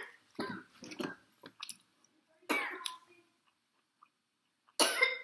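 A woman eating gives a series of short, sudden throaty bursts: one at the very start, a cluster soon after, one about two and a half seconds in and a strong one near the end, with small mouth clicks in between.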